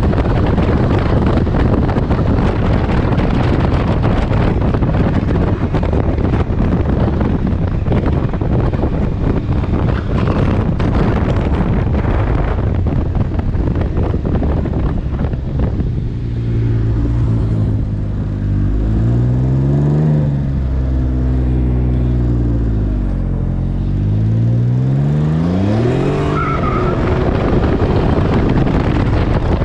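Wind rushing over the microphone on a Can-Am Ryker Rally at about 50 mph. As the trike slows about halfway through, its three-cylinder Rotax engine comes through clearly, revving up and down, then climbing again in pitch as it accelerates near the end.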